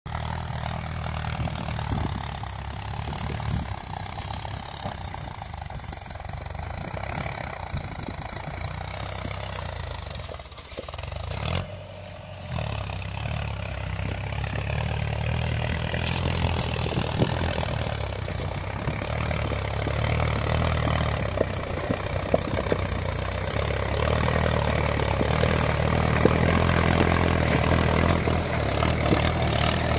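Mahindra Yuvo 575 DI tractor's four-cylinder diesel engine running steadily while working a rotavator. It dips briefly about ten seconds in, then grows gradually louder.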